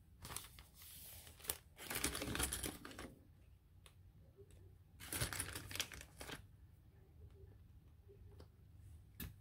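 Paper pages rustling as they are handled and squared up, in three bursts, the loudest about two seconds in, with a few short sharp clicks in between.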